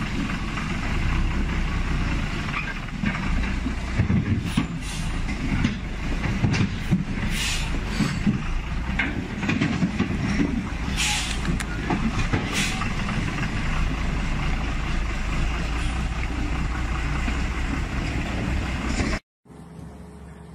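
Loaded log truck's engine labouring at low speed over a rough, rutted track, with several short hisses and creaks. Near the end it cuts off suddenly to a quieter machine sound.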